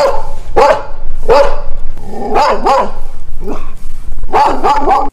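A dog barking loudly and repeatedly, in a string of short barks, some coming in quick clusters.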